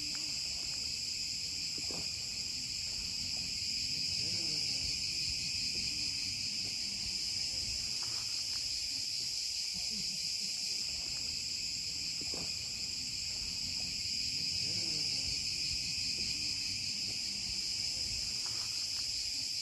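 A dense, unbroken chorus of insects buzzing at a high pitch.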